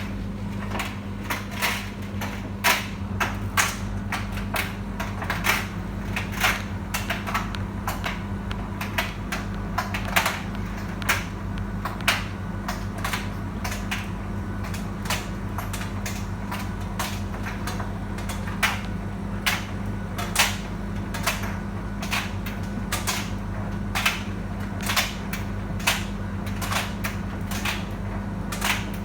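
Beko tumble dryer running, a steady motor and drum hum with irregular sharp clicks and knocks, one or two a second, as the load of clothes tumbles in the drum.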